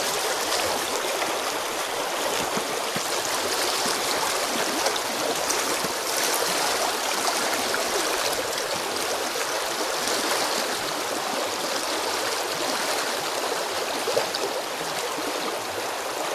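Shallow river riffle rushing and splashing steadily, a continuous even wash of running water close by.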